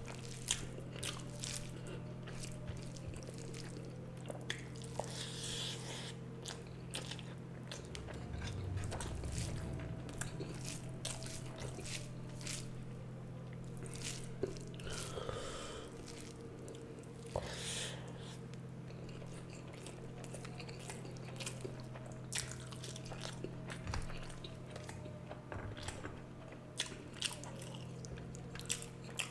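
Close-miked chewing and biting of someone eating rice with fish and egg curry, with many small wet clicks scattered throughout, over a steady low hum.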